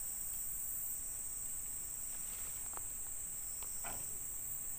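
Steady, high-pitched chorus of insects buzzing in the undergrowth, with a couple of faint brief rustles about three and four seconds in.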